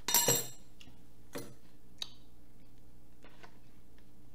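Cutlery squeaking briefly across a plate at the start, then a few light clicks of utensils against the dishes.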